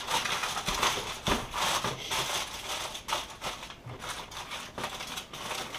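Aluminum foil crinkling and crumpling in irregular crackles as it is wrapped around a pork shoulder.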